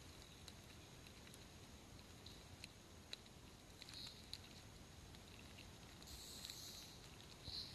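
Faint, scattered clicking and scratching of female Japanese rhinoceros beetles jostling over one another on tree bark at a sap flow, their hard shells and clawed legs clattering, with a few short rustling scuffles, the longest about six seconds in.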